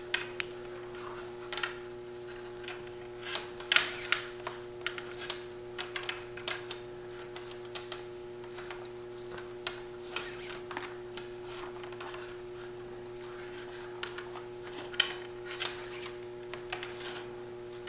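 Nylon 550 paracord rustling and clicking in the hands as it is woven and pulled tight, in irregular short scrapes and ticks that thin out around the middle. A steady hum runs underneath.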